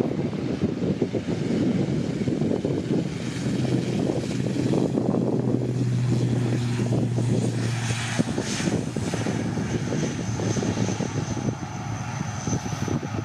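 ATR 72-600 twin-turboprop airliner on its takeoff roll at takeoff power: a steady propeller drone with a strong low hum that swells through the middle and drops away after about eight seconds as it passes, and a thin high whine near the end.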